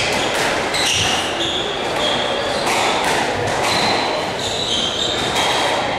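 Squash rally ending: sharp smacks of the ball off racquet and walls near the start, and players' shoes squeaking on the wooden court floor in short, high squeaks that recur through the rest.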